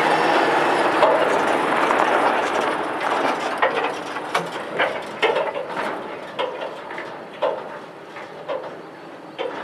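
John Deere tractor and silage trailer driving past over gravel and moving away, the engine and tyre noise fading. As it fades, irregular sharp clanks and knocks come from the passing trailer.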